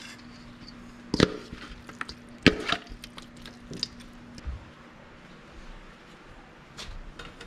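Metal tongs knocking sharply twice against a stainless steel bowl, with a few lighter clicks and soft wet handling of marinated fish pieces between.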